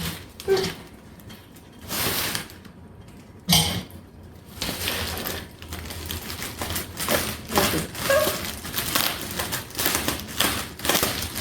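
Handling and unpacking noise from a boxed table torch: a few separate knocks at first, then denser rustling, crinkling and clicking of cardboard and packing material from about four seconds in.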